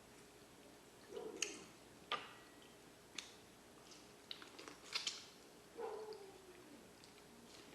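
Close-up mukbang eating sounds: wet clicks and lip smacks of chewing seafood, scattered irregularly, with a couple of short hummed murmurs of enjoyment.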